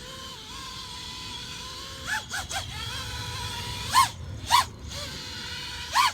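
FPV quadcopter's brushless motors armed and spinning with a steady whine, revved in short sharp blips: three quick ones about two seconds in, then louder single blips at about four, four and a half and six seconds.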